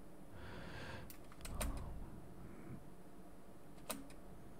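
A few faint, sharp clicks at a computer desk, about four of them scattered over the first four seconds, over quiet room tone.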